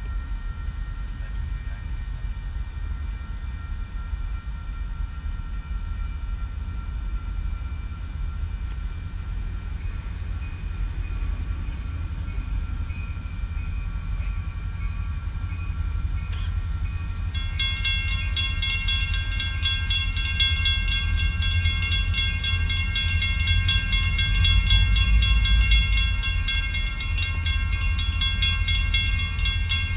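Two EMD SD40-2 diesel locomotives approaching with a deep, steady rumble that grows slowly louder. About seventeen seconds in, a high warning sound starts, with a fast, even repeating pulse, and keeps going as the train nears.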